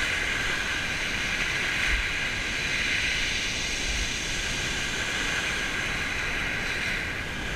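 Steady rushing of small waves breaking on a shingle beach, with a Penn multiplier fishing reel being wound in to retrieve a hooked fish.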